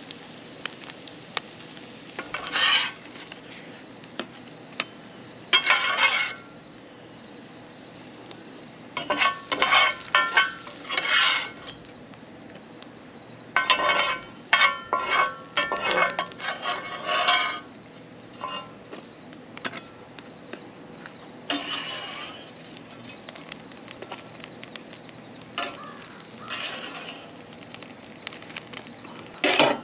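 Metal spatula scraping and clinking against a cast-iron skillet and a grill grate as scrambled eggs and sausages are lifted onto a plate. It comes in scattered bursts of scraping and clatter, busiest in the middle.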